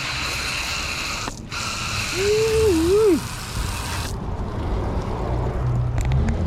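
Hose water spraying from a foam gun set to plain water, rinsing a boat hull: a steady hiss that cuts out briefly about one and a half seconds in and stops about four seconds in. A short wavering tone sounds about two to three seconds in.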